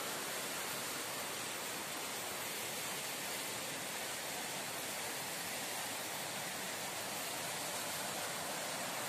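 A steady, even hiss of forest background noise with no distinct sounds standing out.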